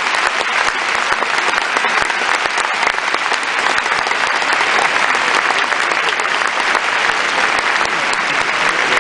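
Arena audience applauding steadily, a dense mass of many hands clapping, after an ice dance program ends.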